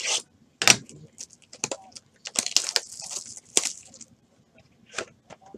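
Plastic shrink-wrap crinkling and tearing as it is stripped off a Topps Five Star trading-card box, with sharp clicks and knocks from the box being handled, the loudest under a second in.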